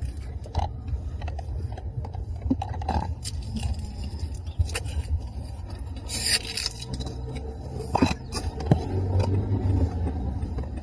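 Car interior while driving: a steady low rumble from the engine and road, with scattered scrapes, clicks and knocks. A short hissy rustle comes about six seconds in.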